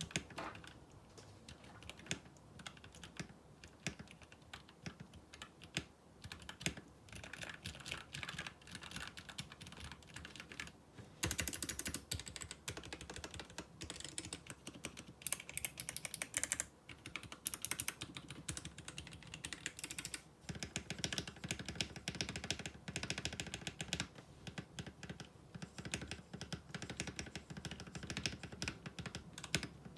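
Continuous fast typing on a tray-mounted, tape-modded GH60 mechanical keyboard with Gateron Ink Yellow linear switches, a dense run of key clacks. The typing gets louder and denser about a third of the way in.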